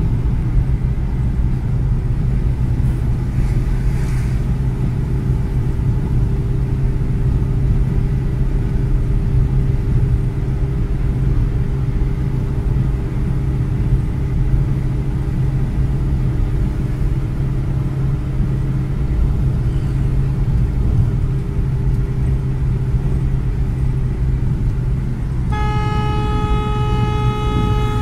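Steady low rumble of a car's engine and tyre noise heard from inside the cabin while driving at road speed. About two and a half seconds before the end, a vehicle horn starts and holds one steady note.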